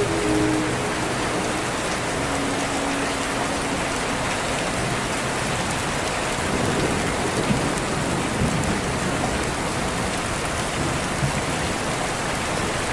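Steady, heavy rain falling and pattering on surfaces, an even wash of noise with no breaks.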